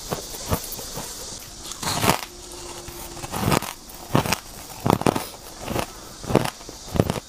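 Shaved ice bitten and chewed close to the microphone: a string of sharp, irregular crunches, one or two a second.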